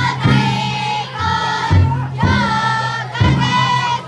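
Futon daiko float's big drum beaten in heavy strikes roughly a second apart, each ringing on, under a crowd of carriers chanting together in long held voices.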